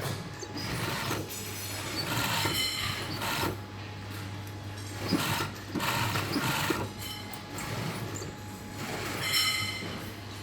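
Sewing machine stitching in several short runs, its whine rising over a rhythmic rattle, with a steady low hum underneath.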